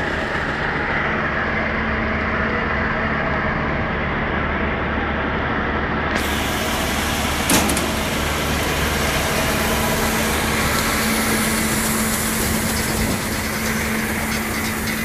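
Bizon Z056 combine harvester running steadily, its diesel engine and threshing machinery giving a continuous hum, with one sharp knock about halfway through.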